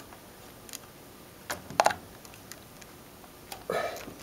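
Scattered light clicks and scrapes of multimeter test probes being worked into the slots of a wall outlet and of the meter being handled, with the loudest cluster of clicks a little under two seconds in and a duller rub near the end.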